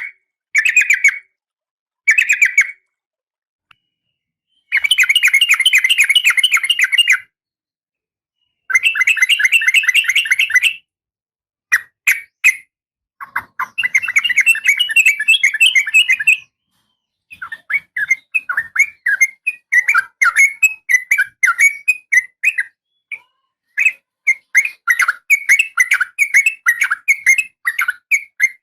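Oriental magpie-robin calls, from a female used as a lure for a male. A few short calls come first, then three rapid chattering trills of about two to three seconds each, then a quick run of short sharp notes to the end.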